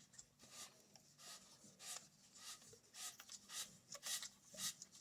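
PTFE (Teflon) thread-seal tape being wrapped around threaded pipe fittings: repeated faint rubbing swishes, roughly two a second.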